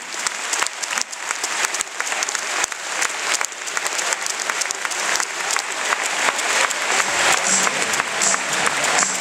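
Stadium crowd applauding, many hands clapping at a steady level.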